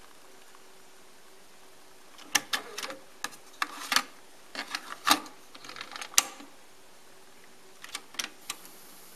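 JVC KD-A11 cassette deck's mechanism being worked by hand. A run of sharp clicks and clunks comes from the eject, the cassette door opening, a TDK cassette taken out and pushed back in, and the door snapped shut. Near the end there is a short cluster of clicks as the piano-key Play button is pressed.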